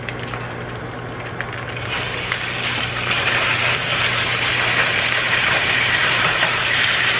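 Marinated chicken thighs and sauce squeezed from a plastic bag into a pan of hot oil, sizzling as they hit it. Faint crinkles of the bag come first, then the sizzle starts about two seconds in and grows steadily louder over a steady low hum.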